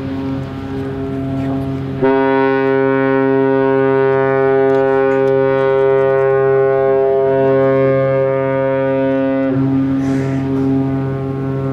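The cruise ship AIDAperla's horn sounds long blasts on leaving port. A deep steady horn note holds throughout. A fuller, louder blast starts sharply about two seconds in and cuts off about nine and a half seconds in.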